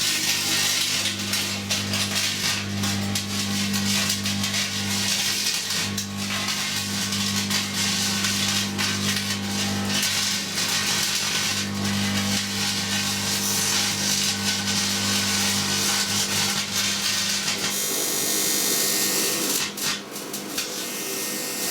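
Microwave oven running with a second magnetron added: a loud, steady transformer hum under a dense crackling hiss from titanium turnings arcing inside. About 18 s in, the hum cuts off while the crackling hiss carries on.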